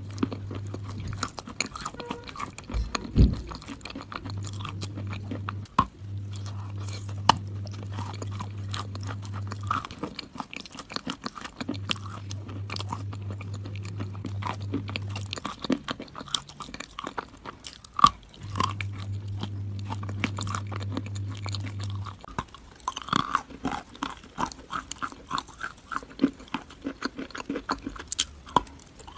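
Close-up chewing of crunchy food: a dense, irregular run of crisp crunches and crackles from bites and chewing, with a low hum coming and going underneath.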